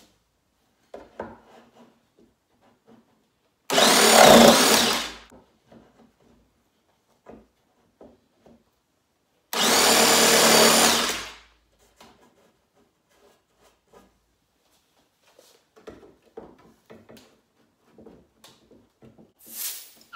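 Ryobi cordless jigsaw sawing through the wooden drawer stops of a dresser frame, in two short bursts of about a second and a half to two seconds each. Faint handling knocks fall between the cuts.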